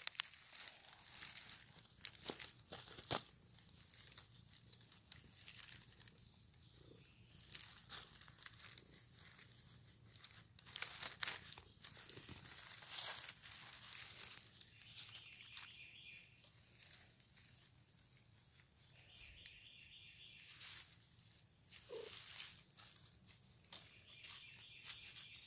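Dry fallen bamboo leaves crackling and rustling in irregular bursts as cats roll about on them and are petted.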